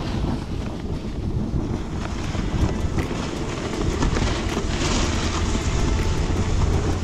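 Wind buffeting the microphone of a snowboarder riding downhill, over the hiss of the snowboard sliding on packed snow. The hiss swells briefly about five seconds in.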